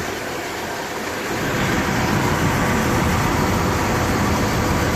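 2006 Jeep Wrangler's 4.0-litre inline-six engine running with a cylinder 1 misfire, a little louder from about one and a half seconds in. Injector 1 is being held on all the time by a faulty PCM driver, so the engine runs rich.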